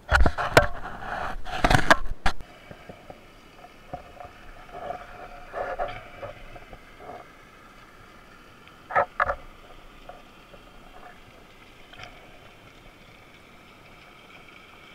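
Loud splashing and knocks for about two seconds, then the muffled underwater sound picked up by a diver's camera: a faint steady hiss with small clicks and two sharp knocks about nine seconds in.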